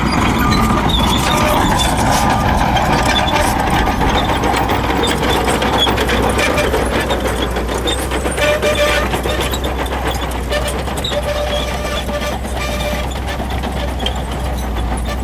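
Shantui crawler bulldozer working: its diesel engine runs steadily while its steel tracks clatter.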